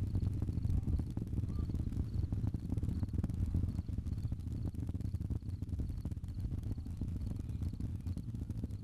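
Low, crackling rumble of the Falcon 9 rocket's first-stage Merlin engines during ascent, held steady.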